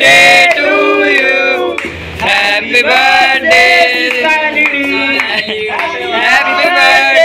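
A group of voices singing together loudly, several people at once.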